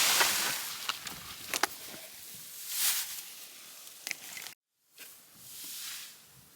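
Dry hay rustling and crackling in bursts as it is handled, with a few sharp clicks. The sound cuts out completely for a moment a little past halfway and comes back softer.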